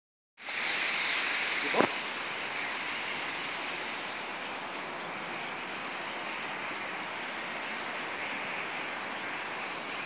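A huge flock of starlings flushing from a tree and wheeling overhead: a dense, steady wash of massed chattering calls and wing noise, loudest as they take off. A single sharp click about two seconds in.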